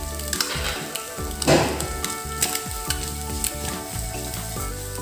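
Egg and onion masala filling sizzling in a nonstick pan while a wooden spatula stirs and scrapes through it, with one louder stroke about one and a half seconds in.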